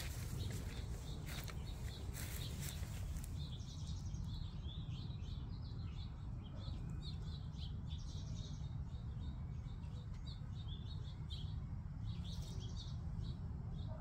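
Small birds chirping, short high chirps repeated again and again from a few seconds in, over a steady low rumble. A few seconds of rustling at the start.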